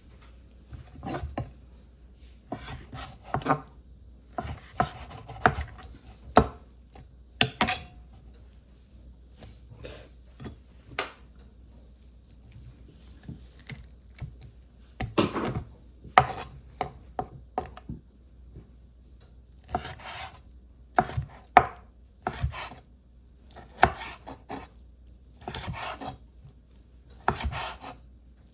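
Knife chopping on a cutting board, in irregular runs of sharp strokes with short pauses between them.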